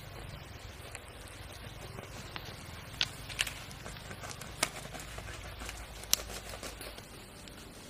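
Knife blade scraping and scoring the crisp, charred skin of a roasted whole crocodile, with a few sharp clicks as the blade catches on the hard scales, over a low steady rumble.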